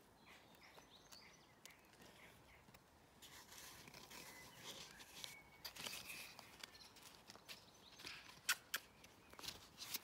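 Faint scuffling of a puppy and a plastic plant pot on gravel, with a few light knocks near the end.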